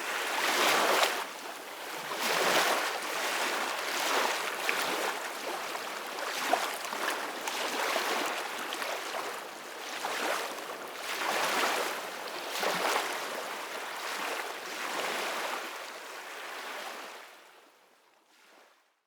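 Soft ocean waves washing ashore, a steady hiss of surf that swells and ebbs in repeated surges. The sound fades out near the end.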